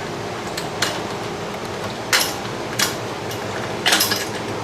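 A handful of sharp metallic clinks and knocks, about five spaced a second or so apart, with two close together near the end, as steel parts and tools of a home gym frame are handled during disassembly. A steady room hum runs underneath.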